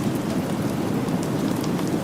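Steady rain falling: a dense, even hiss with scattered light ticks.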